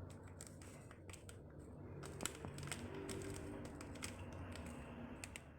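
Faint scattered clicks and light taps of small kitchen items and ingredient packets being handled, over a low steady hum.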